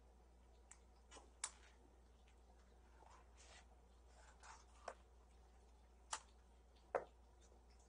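Kittens playing in a quiet room: a handful of faint, scattered clicks and light taps at irregular moments, the sharpest about a second and a half in and again near the end.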